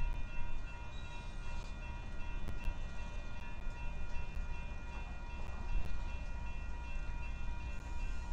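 Diesel freight locomotives, led by a GE ES44AC, rumbling as they approach slowly, with several steady high tones running over the rumble.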